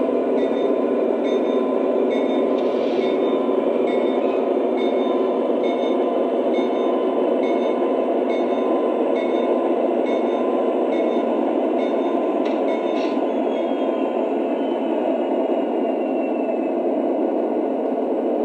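Lionel O-gauge SD70ACe model locomotive's onboard sound system playing a steady diesel engine rumble. Over it the locomotive bell rings about once every 0.8 s, stopping a couple of seconds before the end.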